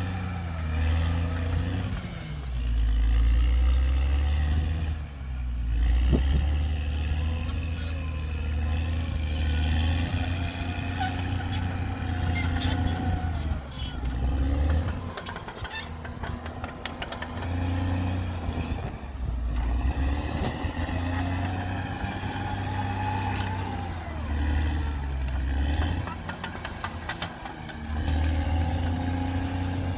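CAT D6R XL bulldozer's diesel engine running under load, its pitch rising and falling as it works. There is a stretch of metallic clatter from the tracks a little before the middle.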